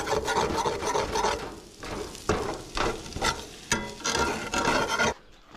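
Potatoes frying in a frying pan, sizzling while being stirred and scraped with a utensil in irregular strokes. The sound cuts off abruptly about five seconds in.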